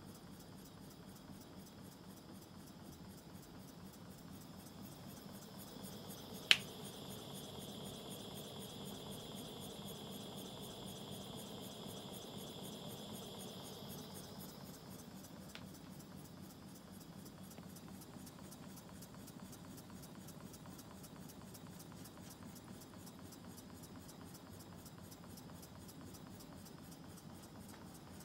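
Westbury Heinrici hot-air Stirling engine running steadily and quietly, with a faint, even ticking over a low steady hum. A single sharp click about six and a half seconds in is the loudest sound.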